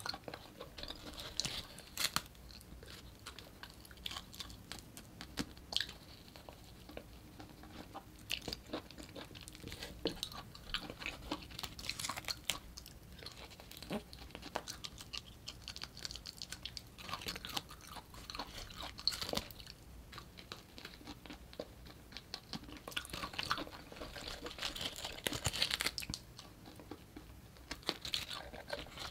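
Close-miked mouth sounds of eating cooked artichoke leaves: teeth scraping the soft flesh off the leaves and chewing, with many small wet clicks and crunchy crackles coming in irregular clusters.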